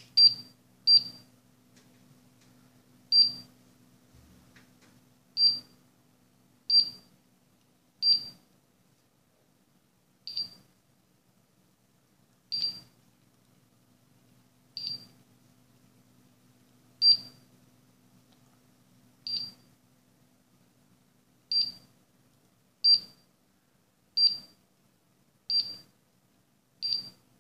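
An Escornabot robot running its programmed sequence: its buzzer gives a short high beep at each move, about eighteen beeps spaced a second or two apart, while its two small stepper motors whir faintly as they drive and turn the wheels.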